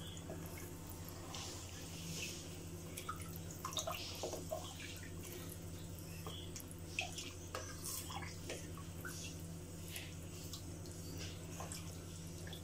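Wooden spatula stirring rice and vegetables in water in a pressure cooker pot: light sloshing and splashing, with scattered knocks and scrapes of the spatula against the pot. A steady low hum runs underneath.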